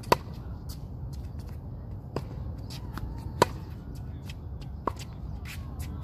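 Tennis balls struck by racket strings and bouncing on a hard court during a rally: a sharp pop every second or so, four within a few seconds, with one near the middle the loudest.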